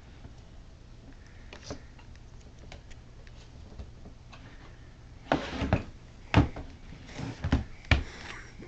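Faint room noise, then from about five seconds in a run of about five sharp knocks and clatters, like hard objects being banged or dropped.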